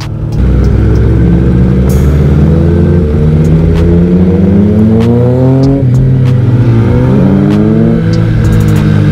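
Superbike's inline-four engine accelerating hard through the gears: the pitch climbs steadily, falls sharply at an upshift a little past halfway, then climbs again.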